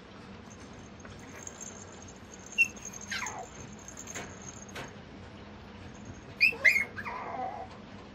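Mame shiba puppy whimpering in high-pitched squeaks: a short squeak and a falling whine about three seconds in, then a louder cluster of squeaks that trails off into a falling whine near the end.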